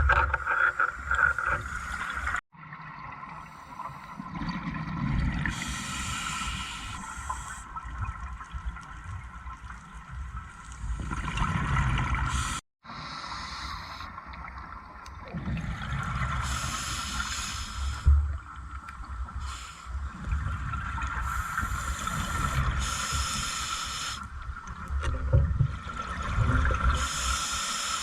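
Underwater scuba breathing through a regulator: the exhaled air bubbling out every five to six seconds over a steady low rumble, with the sound cutting out briefly twice.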